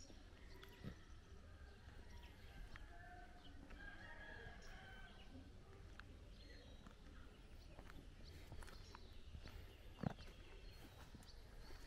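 Faint outdoor ambience: distant bird calls, likely fowl, over a low steady rumble, with a sharp click about ten seconds in.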